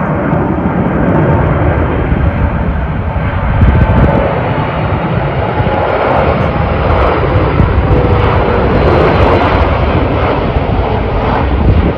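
Four-engined Boeing 747 jet airliner flying low on final approach: loud, steady jet engine noise with a deep rumble and a faint whine over it.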